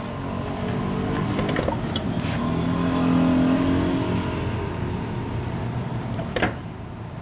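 A car engine running, rising in pitch and loudness to a peak about three seconds in and then easing off. A sharp click comes near the end.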